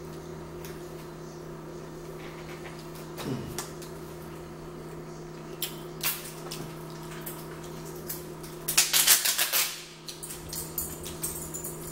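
Fried shrimp being pulled apart with the fingers and eaten close to the microphone: scattered crackles and clicks, with a dense burst of crackling about nine seconds in, over a steady low hum.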